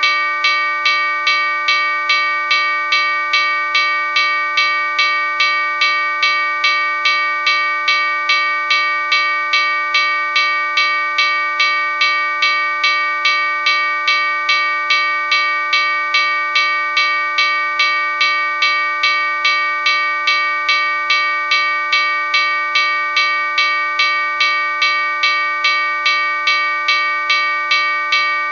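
Railroad crossing bell ringing steadily, struck about twice a second, each strike's ringing carrying on into the next.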